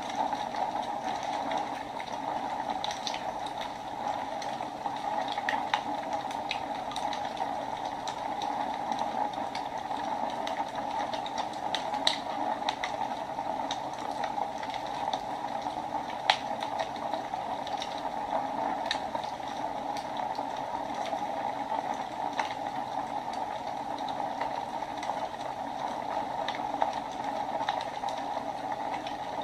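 Wood fire burning in a fireplace: a steady hiss of the flames with irregular crackles and pops, a few of them sharper than the rest.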